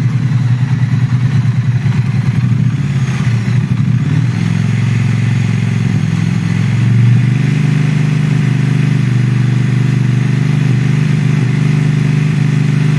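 Motorcycle engine idling, then revved up over a few seconds starting about four seconds in and held at a steady raised speed. The raised speed is held to load the charging system while the current in one stator output wire is measured.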